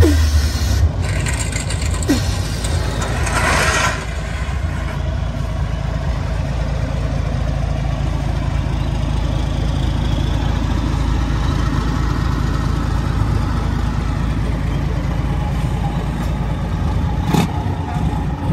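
Heavy truck's diesel engine running steadily at low revs, with a short burst of noise about three and a half seconds in.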